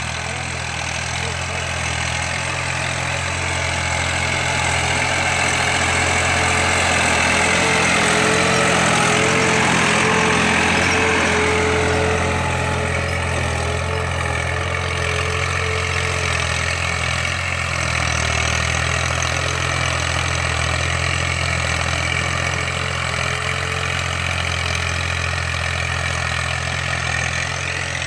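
Farm tractor's diesel engine running steadily as it pulls a tine cultivator through ploughed soil, growing louder for a few seconds around the middle as it passes close.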